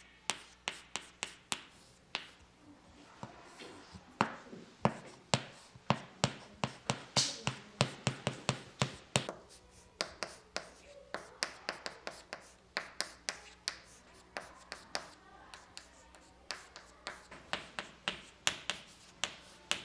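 Chalk writing on a blackboard: a long run of sharp, irregular taps and short scratches as the stick strikes and drags across the board, about two to four a second, sparser in a couple of short stretches.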